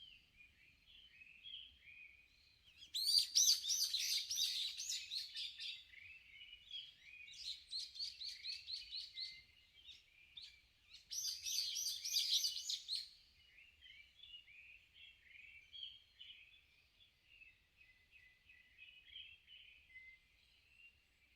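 Wild songbirds singing: three loud bouts of a fast, repeated song phrase, each two to three seconds long, over steady softer chirping from other birds.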